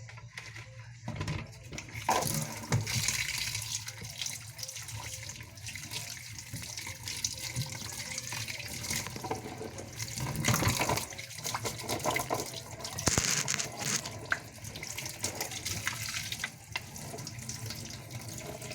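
Water running from a tap and splashing, starting about two seconds in, with scattered short knocks in the flow.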